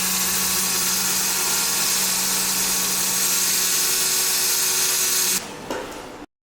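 1500 W handheld fiber laser welder welding thin stainless steel pipe: a loud, steady hissing sizzle over a low machine hum. The welding stops about five seconds in, leaving quieter machine noise that cuts off abruptly near the end.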